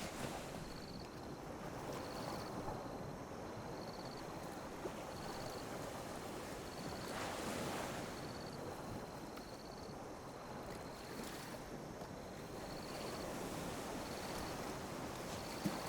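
Gentle sea waves lapping and washing on a beach: a steady rush of water, with one fuller wave wash swelling up about halfway through. A faint, short, high chirp repeats about once a second.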